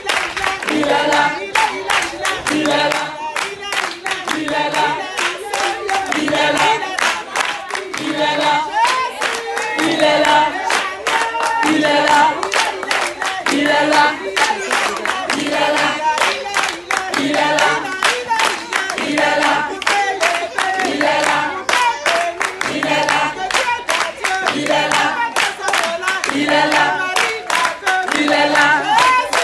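A group of voices singing together with steady rhythmic hand clapping.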